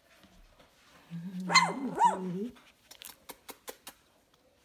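A young Golden Mountain Doodle puppy vocalising: a low growl held for about a second and a half, with two short high yaps over it, starting about a second in. A few faint clicks follow.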